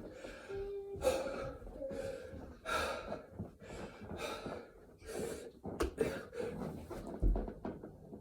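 A man breathing hard and gasping in ragged breaths about once a second, exhausted in the middle of a set of burpees. A couple of dull knocks come near the end.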